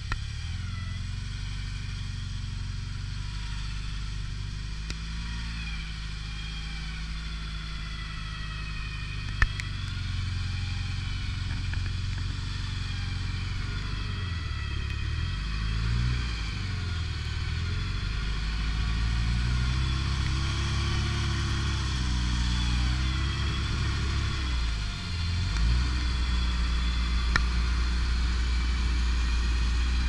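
UAZ off-road vehicle's engine running as it crawls slowly through forest mud, growing louder as it comes closer, with the revs rising and falling repeatedly in the second half. A single sharp click about a third of the way in.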